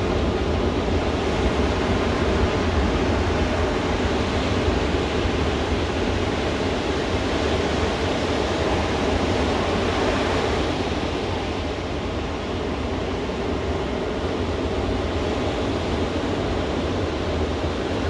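Ocean surf breaking and washing up a sandy beach: a steady, full rush of white water that eases a little about eleven seconds in.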